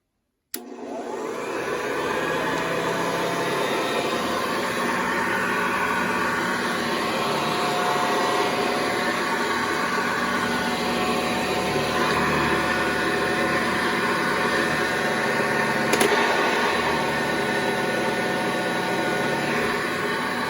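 Hoover Convertible 1076 upright vacuum cleaner switched on with a click about half a second in. Its motor spins up over a second or so, then runs steadily with a whine over the rush of air. There is one short knock about three quarters of the way through.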